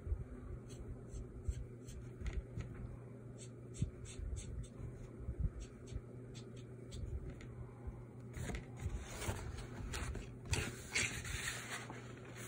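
Short, scratchy strokes of ink being laid down on drawing paper, one after another, as hair lines are inked. From about eight seconds in, louder rustling and handling noise of the paper.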